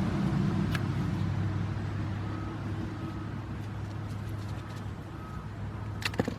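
A steady low hum in the background, with one click early and a quick cluster of sharp clicks near the end as brake pad hardware is handled.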